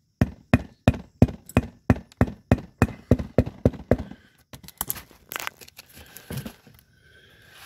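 Rubber mallet striking a new plastic bushing down into the steel hub of a Cub Cadet GTX1054 riding mower's front wheel, driving the tight-fitting inner bushing into place. About a dozen evenly paced blows, roughly three a second, then a few lighter knocks about four seconds in.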